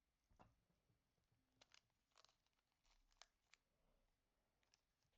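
Near silence, with about eight faint scattered ticks and crinkles from Pokémon trading cards and pack wrappers being handled.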